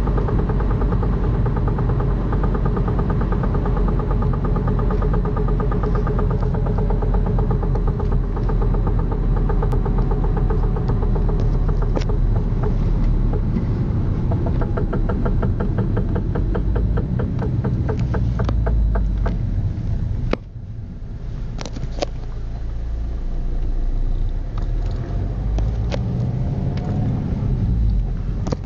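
Alfa Romeo 147 engine running with a rapid, regular ticking, a suspect noise that appeared after its timing belt was replaced. About two-thirds of the way through the engine sound suddenly gets quieter, then builds back up.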